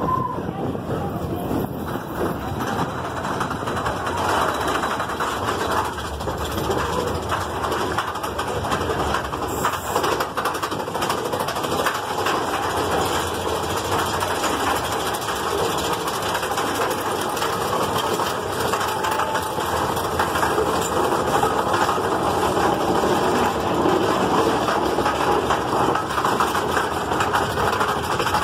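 Big Thunder Mountain Railroad mine-train roller coaster heard from a rider's seat, running along its track with a steady rumble and dense rattling clatter. Partway through the train climbs a chain lift hill.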